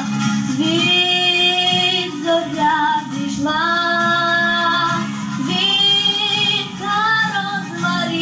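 A girl singing a Ukrainian song solo into a microphone, holding long notes, over a steady low accompaniment.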